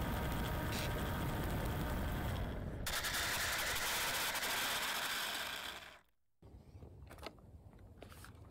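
The homemade RC ground-effect craft's motor and propeller whine over heavy wind rush on its onboard microphone. The motor tone stops about three seconds in, and a loud rough rushing noise goes on. Near the end it cuts to quiet, with a few light clicks and knocks as the foam airframe is picked up.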